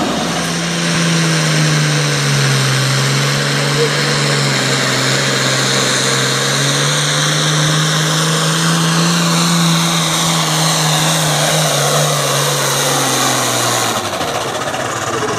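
Turbocharged diesel engine of a Pro Stock pulling tractor running hard at full throttle under heavy load, with a high turbo whistle over it. The engine note sags slightly, climbs again, then falls away near the end.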